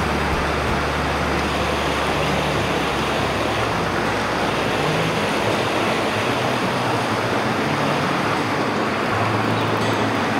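Snowmelt-fed mountain stream rushing over rocks in small cascades: a steady wash of water noise. A low rumble underneath fades out about three seconds in.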